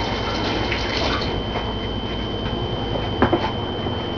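Steady rush of running water, with a couple of light clicks about three seconds in.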